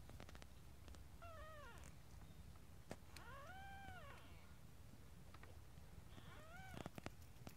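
Newborn kittens mewing: three thin, high cries, each rising and then falling in pitch, the middle one longest.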